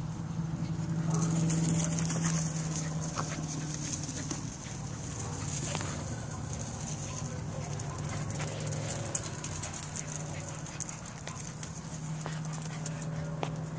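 Italian greyhounds' paws pattering and thudding as they chase each other across grass, with scattered clicks and a quick rattling run near the end. Under it runs a steady low hum and a high steady hiss.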